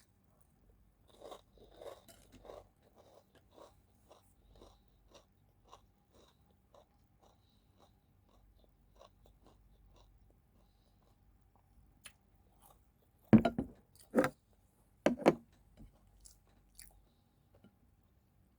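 A person chewing food close to the microphone, a soft steady rhythm of about two chews a second, then three loud crunches a little after halfway as she bites into something crunchy.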